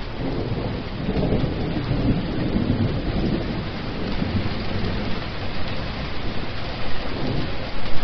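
Heavy rain pouring onto a water surface, with a low rumble of thunder underneath that swells about a second in and again near the end.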